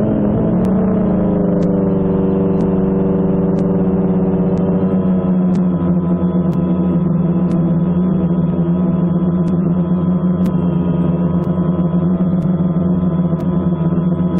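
Small quadcopter drone's motors and propellers buzzing steadily, picked up close by its own onboard camera. The pitch eases down slightly over the first couple of seconds, then holds even.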